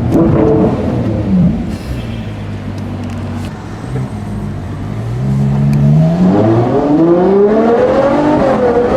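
Ferrari 812 GTS's naturally aspirated V12 heard with the roof open: the revs drop off and settle to a low steady run, then climb again from about five seconds in, with a brief dip before rising once more.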